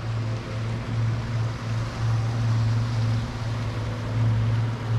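A boat motor running steadily, a low hum that swells and dips, over a rushing wash of water and wind.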